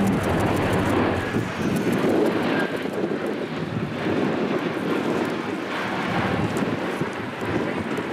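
P-3C Orion's four Allison T56 turboprop engines running in a steady, loud drone as the aircraft flies past overhead.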